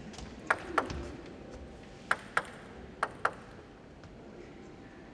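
Table tennis ball bounced before a serve: three pairs of short, sharp clicks, each pair a little over a second after the last.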